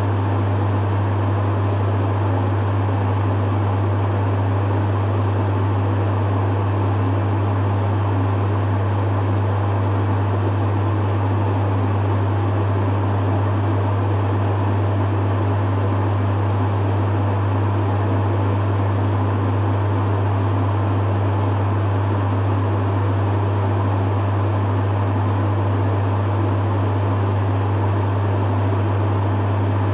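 Dehumidifier running steadily: a strong low hum from the compressor under the even rush of its fan.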